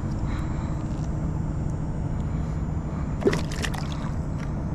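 Steady low rumble with water sloshing against a canoe, and a short run of sharp clicks and knocks about three seconds in.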